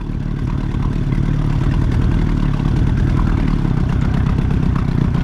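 Outboard motor of an inflatable fishing boat running steadily while trolling. The sound swells up over the first second.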